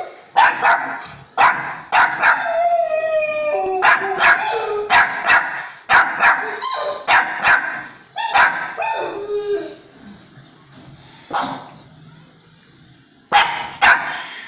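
A dog barking in a rapid run of sharp barks mixed with drawn-out howling cries that fall in pitch. After about ten seconds the barking thins out to single barks, with two more close together near the end.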